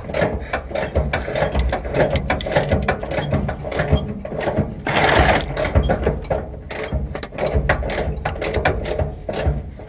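Hand socket ratchet clicking rapidly and unevenly as a bolt is worked loose, with metal tapping and scraping in between.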